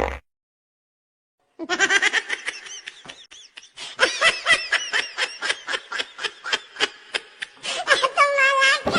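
High-pitched laughter in a run of quick, repeated ha-ha pulses, starting about a second and a half in after a moment of silence and ending in a longer drawn-out note.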